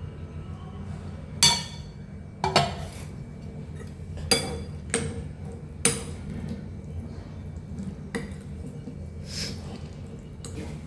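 Dishes and utensils clinking and knocking against each other, about seven sharp strikes spread unevenly, over a steady low hum.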